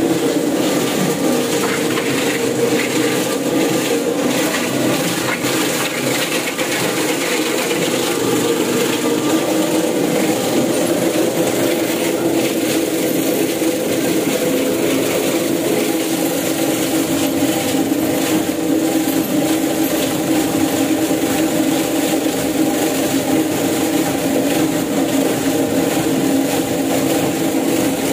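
Plastic scrap granulator running with a steady, loud mechanical drone, the machine that grinds reject caps and runners back into flakes for reuse.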